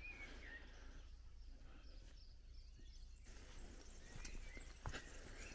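Faint quiet outdoor ambience with a few soft bird chirps near the start.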